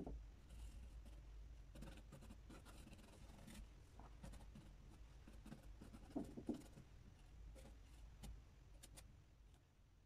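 Faint scratching and dabbing of a bristle brush laying oil paint onto a painting panel, with a couple of soft knocks about six seconds in. A low steady hum lies underneath.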